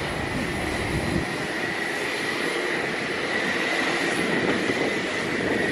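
Aircraft turbine engine running on the apron: a steady high whine over a steady rushing noise. A low rumble underneath drops away about a second in.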